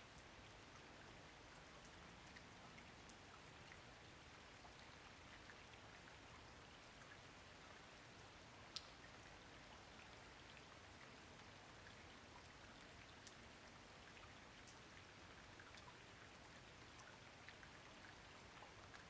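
Faint, steady rain, with individual raindrops ticking here and there and one sharper drop about nine seconds in.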